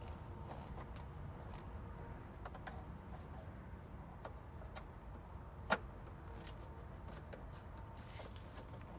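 Faint scattered ticks and clicks of a T20 Torx screwdriver working a screw deep in a car's dashboard beside the instrument cluster, with one sharper click a little before six seconds in, over a steady low hum.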